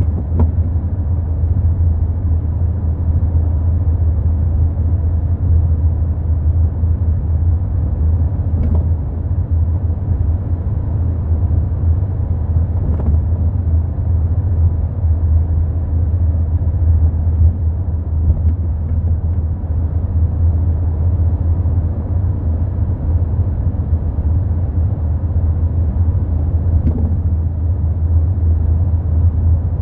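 Steady low rumble of a moving Volkswagen Golf Mk4, with a few faint, short knocks several seconds apart from a failing rear shock absorber.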